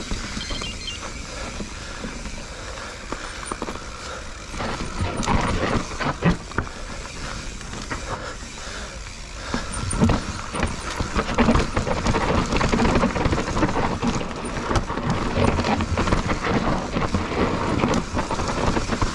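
Lapierre Zesty enduro mountain bike riding down a rough dirt trail, picked up by a chest-mounted GoPro: tyres rolling over dirt and rock, with frequent knocks and rattles from the bike. It gets louder and rougher about ten seconds in.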